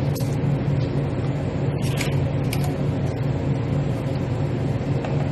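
Steady low background hum throughout, with a few short light clicks about two seconds in.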